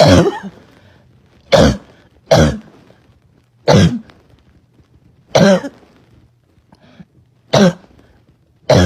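A girl's barking cough: seven separate loud coughs, one every second or two.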